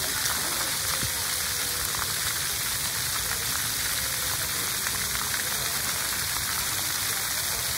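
Splash pad water jets spraying and pattering steadily onto wet concrete, an even hiss of falling water.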